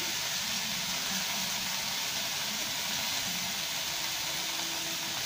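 Chicken and broccoli stir-fry sizzling steadily in a hot pan, an even hiss.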